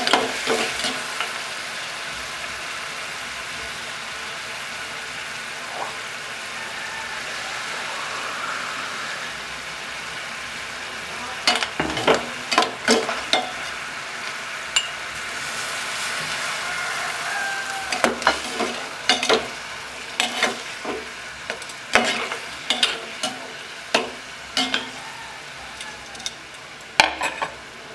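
Coconut milk simmering and sizzling in a pot with a steady hiss, while a metal spoon stirs through the snails and vegetables. The spoon clinks against the pot in quick runs of knocks about twelve seconds in, again from about eighteen to twenty-five seconds, and once near the end.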